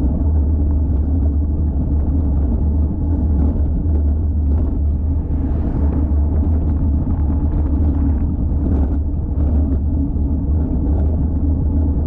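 Steady low wind rumble buffeting an action camera's microphone on a road bicycle riding at speed.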